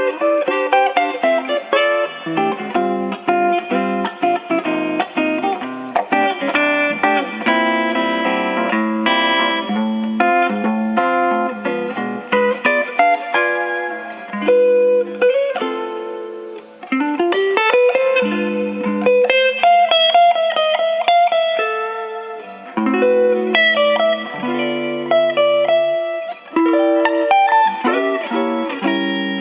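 Guitar played live: fast picked single-note runs mixed with chords, with a note sliding up in pitch about seventeen seconds in.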